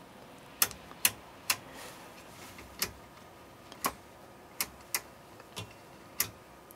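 About nine sharp, irregularly spaced clicks from a control on the bench test setup being stepped down to lower the current through the load.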